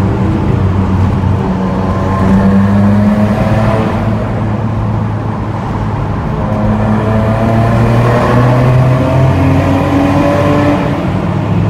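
Nissan Skyline R32 GT-R's twin-turbo straight-six running steadily at cruising speed, heard from inside the cabin, getting a little louder around two seconds in and again about eight seconds in.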